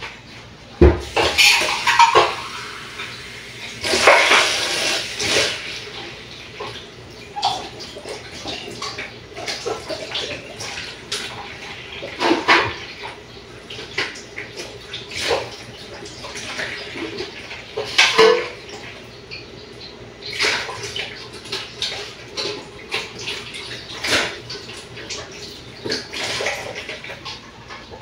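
Washing up at a kitchen sink: tap water running in spells, with dishes and pans clattering and knocking against the sink throughout.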